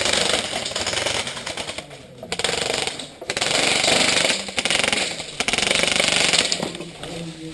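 Airsoft electric rifle firing full-auto in three long bursts, a fast mechanical rattle, the last burst the longest.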